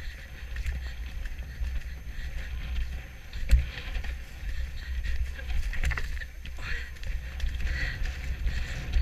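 Hoofbeats of a horse going at speed over frosty turf, heard from the saddle, with tack jingling and a steady low rumble on the microphone. A louder thump comes about three and a half seconds in.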